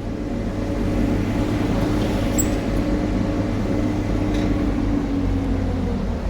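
An engine running steadily, growing louder over the first second, its pitch dropping near the end.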